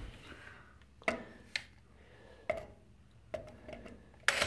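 A handful of short, sharp clicks and light knocks, about five of them spread out, from the power drill and the wooden workpiece being handled between drilling runs.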